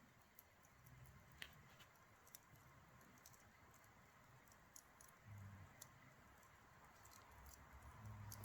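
Campfire crackling faintly: scattered small pops and snaps at irregular intervals, with a low dull bump about five seconds in and another near the end.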